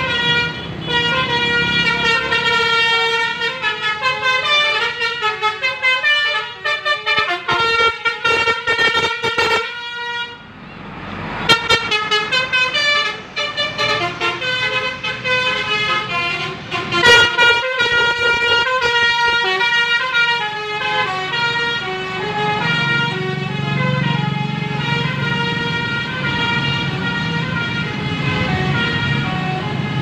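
Tour bus's basuri telolet air horn, a multi-trumpet horn playing a melody of quick changing notes, with a short break about ten seconds in and a loud burst around seventeen seconds. In the second half the bus's engine can be heard running low under the horn.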